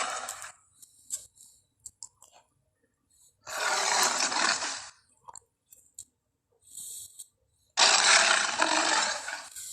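Giant crocodile monster sound effects: the tail of one harsh, breathy growl, then two more each lasting about a second and a half, with small clicks and crunching sounds between them.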